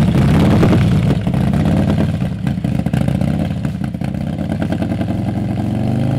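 Custom 2022 Harley-Davidson Road Glide's 131-cubic-inch V-twin running through a Burns Stainless bagger exhaust. It is loud and rough at first, then settles into a steady idle about five seconds in.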